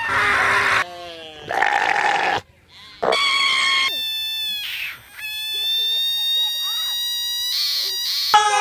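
Goats screaming in a quick series of separate calls, each cut off sharply, some harsh and some clear-pitched. One long, high scream is held steady through the middle.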